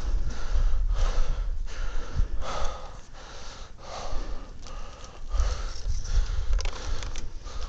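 Heavy breathing close to a body-worn microphone, in and out about once a second, with low rumbling handling noise from the camera rubbing on clothing and gear.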